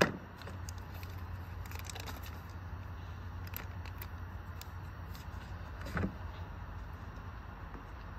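A glass pan lid set down with a clunk, then faint rustling and clicks of a butter wrapper being handled and a softer knock about six seconds in, over a steady low rumble.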